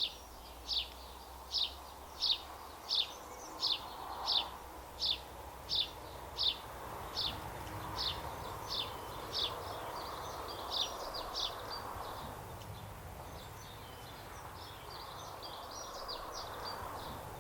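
A bird repeating a single short, high call note about once every 0.7 seconds. The calls grow fainter and less regular after about twelve seconds, over a steady outdoor background noise.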